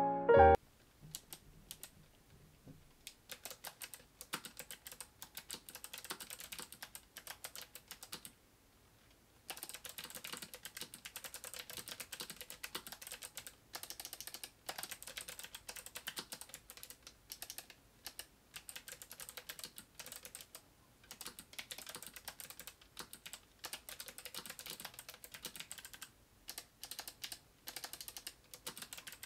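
Typing on an RGB-backlit computer keyboard: a few scattered key clicks at first, then a fast, steady stream of clicking with a few brief pauses, the longest about a third of the way in.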